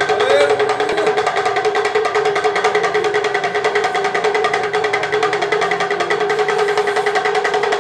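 Damaru, a small two-headed pellet drum, rattled fast and continuously by twisting it in the hand, giving an even, rapid drumming rattle.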